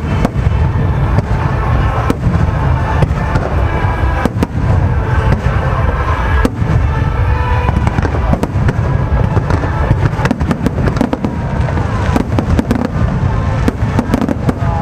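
Aerial fireworks going off in a dense, continuous barrage: deep booming bursts one after another with many sharp bangs and crackling reports.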